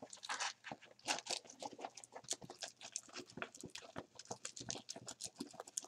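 Diamond Art Club diamond painting canvas being rolled by hand against its curl to make it lie flat: a continuous run of small, irregular crackles and crinkles.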